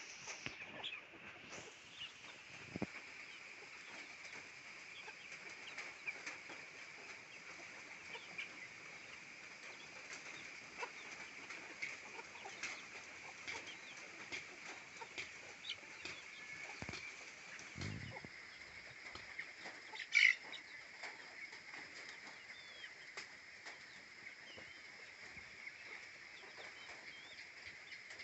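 Local free-ranging chickens, roosters and hens, clucking softly with scattered small scratching and pecking clicks and some wing flapping. One louder call comes about two-thirds of the way through, over a steady high hum.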